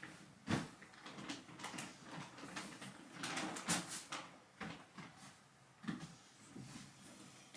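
Pillows being tossed onto a bed and arranged: soft thumps and fabric rustling, the loudest thump about half a second in, with a longer rustle around three to four seconds in.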